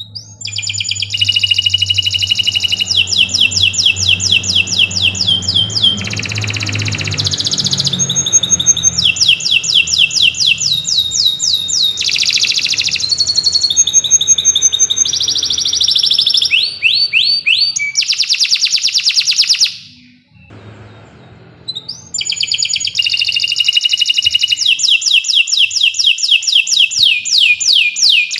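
Domestic canary singing a long, loud song of rapid trills: fast runs of repeated high notes, some sliding up or down. It breaks off for about two seconds about two-thirds of the way through, then starts again.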